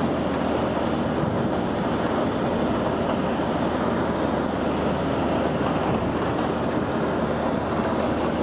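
Steady road noise inside a moving vehicle: tyre and wind rush with a low, even engine hum.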